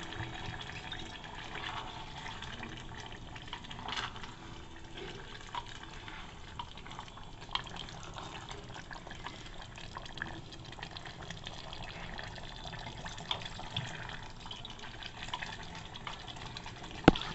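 Water poured from a plastic bottle into an aluminium pot of cornflour-thickened gravy, then the gravy cooking on the gas with a steady low hiss and scattered small clicks of a wooden spatula against the pot, one sharp knock near the end.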